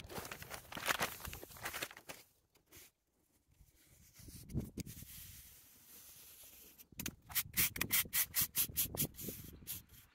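Stiff-bristled push broom sweeping sand over concrete block paving, brushing it into the joints. Scraping strokes at first, a lull, then quick short strokes, about five a second, from about seven seconds in.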